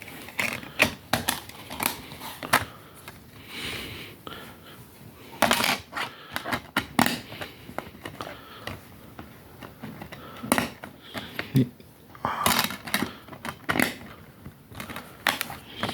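Plastic DVD case and its packaging being handled and opened: irregular clicks, taps and small rattles.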